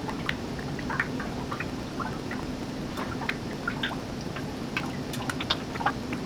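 Calcium carbide fizzing in a water-filled graduated cylinder, giving off acetylene bubbles, with chlorine gas also bubbling through. Irregular small plinks and pops, several a second, like bubbles bursting, over a steady low hum.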